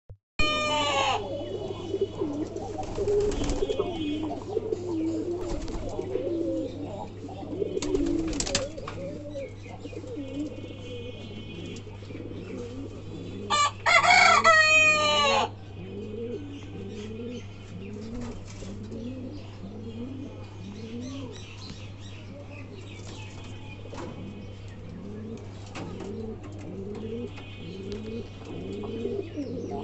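Domestic pigeons cooing in a loft, a low rising coo repeated about once a second through the second half. A much louder, higher call cuts across twice, briefly just after the start and for about two seconds around the middle.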